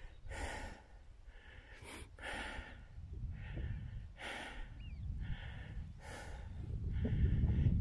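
A man breathing hard through the mouth, short hissy breaths in and out about once a second, as if out of breath from climbing a steep track. Wind rumbles on the microphone underneath and grows louder near the end.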